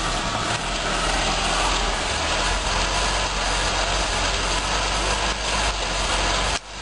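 Ford Mustang's turbocharged 2.3-litre four-cylinder engine idling steadily, still cold from a first start after sitting about two weeks, with a constant low rumble under a steady hiss. The sound drops briefly near the end.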